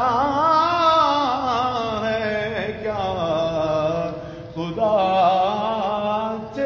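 A man singing an Urdu naat, a devotional poem in praise of the Prophet, in long melismatic phrases with held notes that waver in pitch; one phrase ends about four and a half seconds in and the next begins right after.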